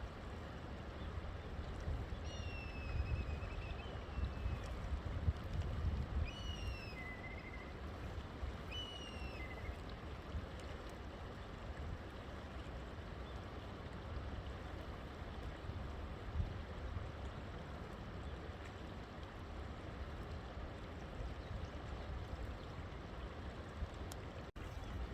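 River water flowing steadily. A bird calls three times, in short pitched calls, between about two and ten seconds in.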